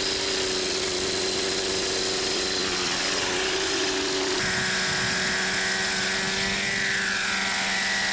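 Nitro glow engine of an RJX Extreme 50 radio-controlled helicopter running steadily with the rotor turning, during the new engine's break-in run. About four seconds in the pitch shifts and a higher whine comes in, wavering briefly near the end.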